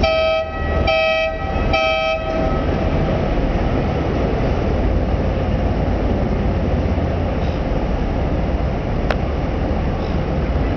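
A boat horn sounds three short blasts about a second apart, each lasting about half a second. Three short blasts is the standard harbour signal for a vessel going astern. After the blasts there is a steady harbour background with a faint click late on.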